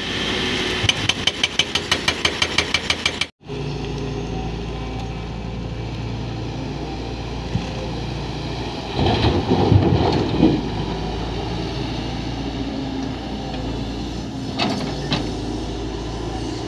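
Hydraulic excavators' diesel engines running under load, with rapid even knocking at about six or seven strokes a second for the first three seconds. After a sudden break the engines run on as a steady drone, with a burst of rock clattering around nine to ten seconds in.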